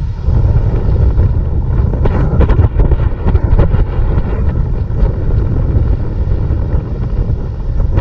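Heavy wind buffeting the microphone of a pole-held camera while snowboarding fast through powder, with the hiss and scrape of the snowboard sliding on snow.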